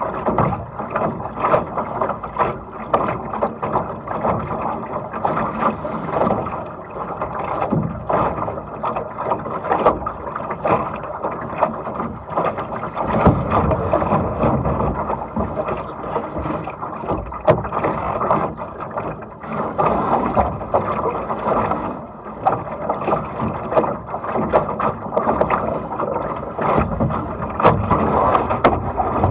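Water rushing and slapping against the hull of a Laser sailing dinghy under way, with frequent short, irregular knocks and splashes over a steady wash.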